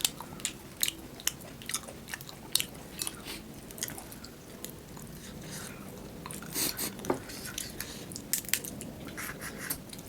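Biting and crunching on a fried crab leg, its hard shell cracking in many irregular sharp snaps, with chewing between them.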